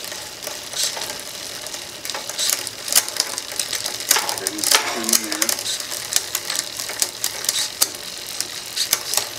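Bicycle chain running over a 7-speed cassette and through a Wheeltop EDS TX wireless electronic rear derailleur with the cranks turning, a steady whir with many sharp clicks and ticks as the derailleur shifts the chain from cog to cog. The shifting itself is super quiet.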